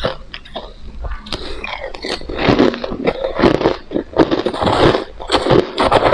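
Close-miked biting and chewing of hard crushed ice: irregular crunches, several a second, the bites louder and denser from about two seconds in.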